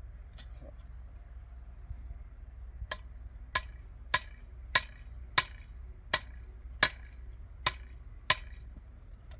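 A hand tool striking something hard: one blow early, then about nine evenly spaced strikes, each with a short ringing.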